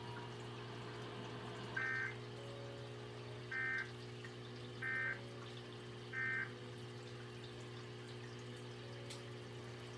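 Emergency Alert System end-of-message code: four short warbling bursts of digital data tones, each about a third of a second and spaced a little over a second apart, over a steady low hum.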